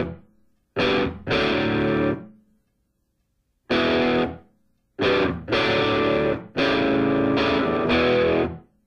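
Music: distorted electric guitar chords played in short stop-start stabs, with dead silence between them.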